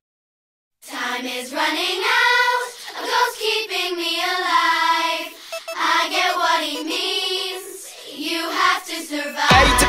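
Soundtrack music. After a brief silence, voices sing without accompaniment in slowly gliding held notes. Near the end, a new track starts with guitar and a steady beat.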